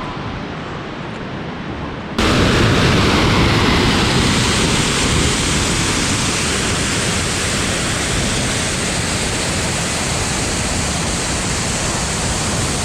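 Waterfall rushing: a steady, loud roar of falling water. About two seconds in it turns suddenly louder and fuller, then holds steady.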